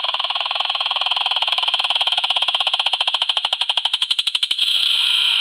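Fertilizer spreader's spinner turning with a fast, even clicking, roughly ten clicks a second, that slows a little. Near the end the clicking gives way to a steady whir.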